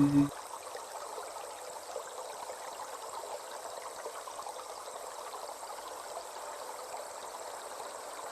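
Steady rushing of flowing water, like a stream. A held chanted note cuts off just after the start.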